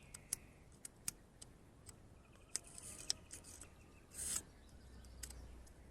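Faint, scattered plastic clicks from a two-pin alternator wiring connector being handled as its purple terminal lock is pushed about, with one short scrape about four seconds in.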